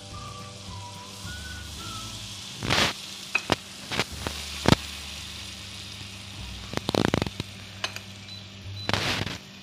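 Flour cooking in melted butter in a pan, sizzling steadily: the start of a roux for a cream sauce. Metal whisk and spoon clatter against the pan and bowls several times, loudest about three seconds in, around seven seconds, and near the end.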